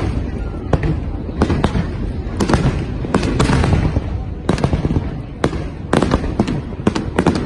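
Fireworks display: an irregular run of sharp bangs and crackles, about two a second, over a continuous low rumble.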